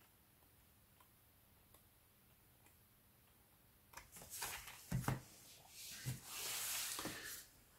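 Near silence, then about four seconds in, books being handled: a few soft knocks and a longer sliding, rustling rub of paper or card.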